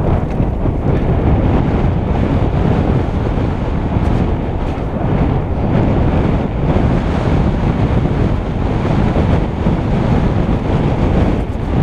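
Loud, steady wind rush over an action camera's microphone during a fast mountain-bike descent, with knobby tyres rumbling over the dirt trail and a few knocks from the bike over bumps.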